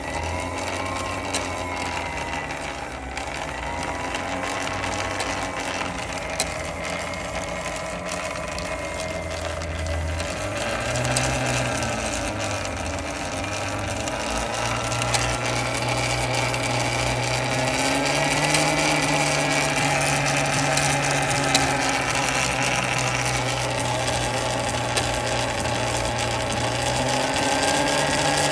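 Talaria MX5 electric dirt bike's motor and chain drive running, its whine rising and falling as the speed changes, with a few sharp clicks scattered through it.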